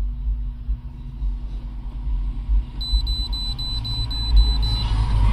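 A run of about eight quick, evenly spaced high electronic beeps from an OBD2 scan tool that cannot communicate with the car, over a steady low rumble.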